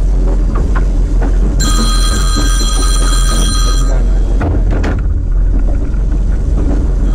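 An electronic ringing tone, several steady pitches together like a phone ring, sounds for about two and a half seconds from shortly after the start. Under it runs a constant low rumble with a few scattered knocks.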